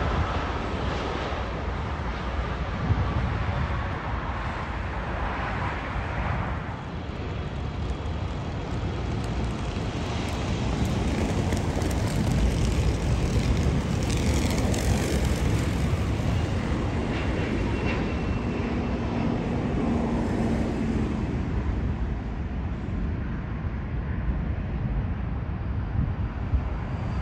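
Jet airliner engines: a steady low rumble with a faint whine that glides down in pitch in the first few seconds. The sound grows louder around the middle, with a higher whine, as an approaching jet nears.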